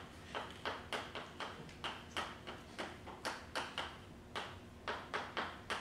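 Chalk writing on a blackboard: a string of short taps and scrapes, about two to three a second, with a few slightly longer strokes.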